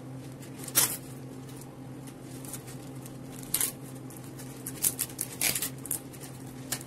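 Wrapping paper around a flower bouquet rustling and crinkling as it is handled and turned, in a few short rustles, the loudest about a second in, with more around five seconds in. A steady low hum runs underneath.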